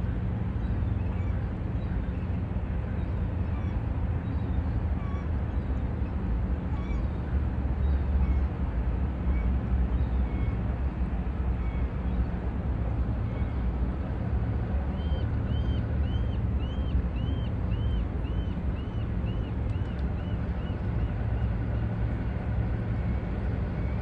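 The Pacific Navigator pilot boat's engines run with a low, steady drone. In the second half a bird gives a run of about fifteen quick, repeated calls that come faster and fainter.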